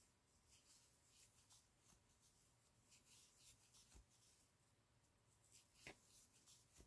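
Near silence, with faint scattered scratches and small ticks of a metal crochet hook drawing yarn through stitches as a row of half double crochet is worked.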